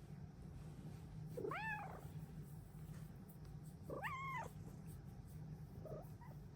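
Bengal cat meowing: two drawn-out meows, each rising then falling in pitch, about two and a half seconds apart, then a short faint call near the end, over a steady low hum.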